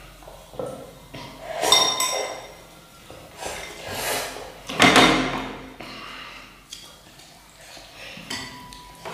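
Eating instant noodles from a ceramic bowl: a metal spoon and chopsticks clink against the bowl, with a brief ringing clink about two seconds in. Several louder eating sounds come in between, the loudest about five seconds in.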